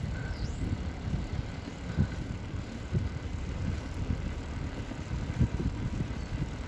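Wind on the microphone and tyres rumbling on tarmac while coasting downhill, with a few low thumps from bumps in the road.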